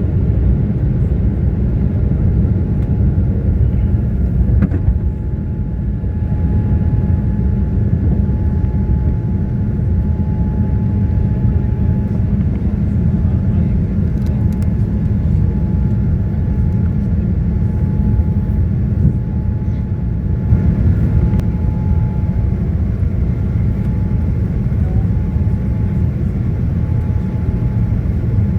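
Boeing 787-9 jet engines at high power: a loud, steady deep rumble with a thin, steady whine above it.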